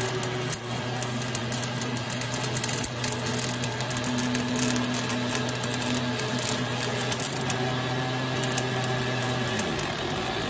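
Crackle and buzz of a pulsed gas-shielded welding arc running steadily as the automated machine welds the seam of a rotating hydraulic cylinder piston. A steady low hum lies under it and stops near the end.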